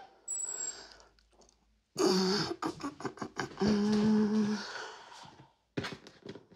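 A clear plastic storage box being handled and set down on a table: a sudden burst of knocking and rustling about two seconds in, a low drawn-out squeak of plastic for about a second after that, and a quick run of clicks near the end as the lid clips are worked.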